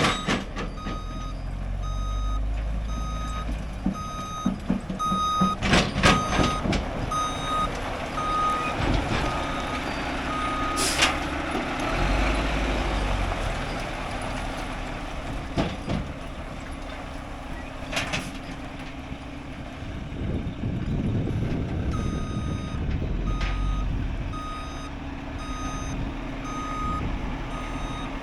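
Rollback tow truck's reversing alarm beeping about once a second over the running engine, stopping for a stretch in the middle and starting again near the end. A few sharp clanks or hisses come in between.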